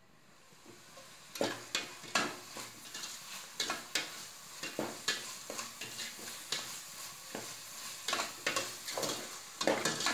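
Metal slotted spoon stirring and scraping mushroom masala around an aluminium pot, a stroke about every half second, over a steady sizzle of frying. The stirring starts about a second in.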